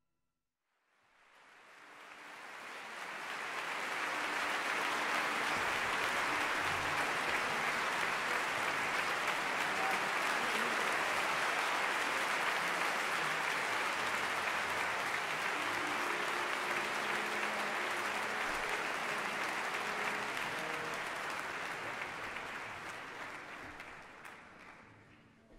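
A large concert-hall audience applauding, fading in over the first few seconds and dying away near the end.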